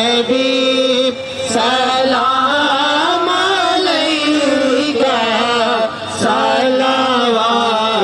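A devotional naat chanted by a single voice in long, drawn-out, wavering melodic notes, breaking briefly between phrases about a second in and again near six seconds.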